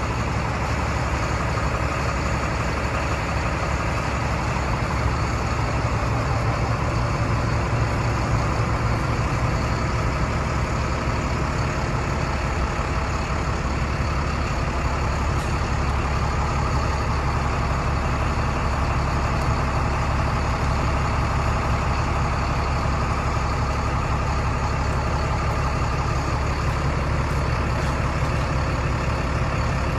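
Heavy diesel truck engine idling steadily.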